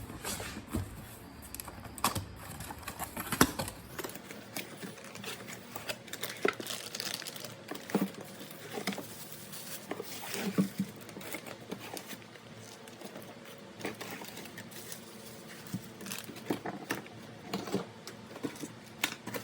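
Packaging being opened and handled: irregular crinkling and rustling with scattered clicks and knocks of parts being set down.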